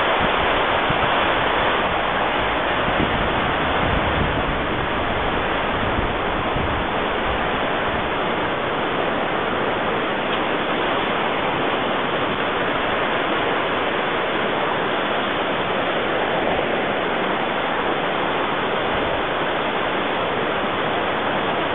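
The Sutlej river gushing over rocks and rapids: a steady rush of white water.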